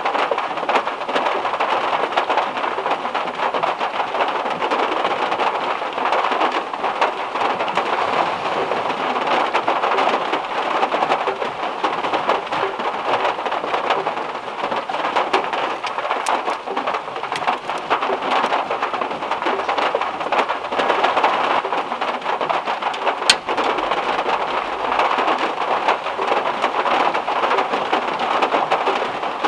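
Heavy rain falling on the metal roof of a VW Beetle, heard from inside the car as a dense, steady hiss of drops. A single sharp click about 23 seconds in.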